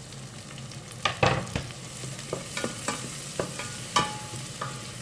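Chopped onion and ginger sizzling in butter in a pan, stirred with a utensil that knocks and scrapes against the pan several times, loudest about a second in and again near four seconds.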